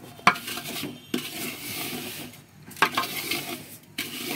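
Wooden spatula stirring ghee-fried vermicelli and sugar in a metal pot on the heat, with a soft frying sizzle and several sharper scrapes against the pot.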